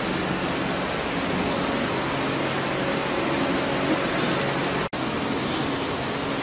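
Steady hissing background noise with a faint low hum. It drops out for an instant about five seconds in.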